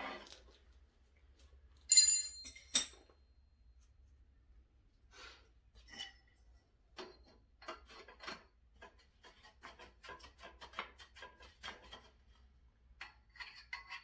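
Metal hardware and parts of a table-saw leg stand being handled. A sharp ringing metallic clink about two seconds in, a second click right after, then light scattered clicks and rattles.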